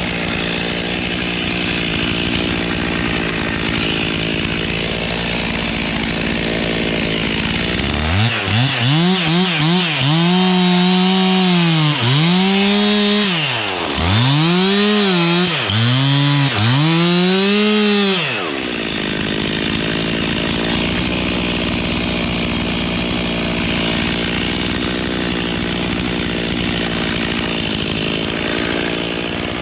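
Two-stroke chainsaw running steadily at high speed, then revved up and down several times, dropping toward idle between revs, from about eight seconds in to about eighteen seconds in, before settling back to a steady high-speed run.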